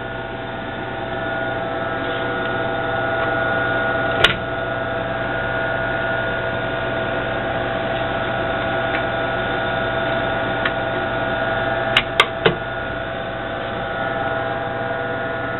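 Steady hum of the powered-up Shugart 8-inch floppy drive cabinet, with several constant tones. A sharp click about four seconds in and three quick clicks near twelve seconds come from an 8-inch floppy being loaded into the drive.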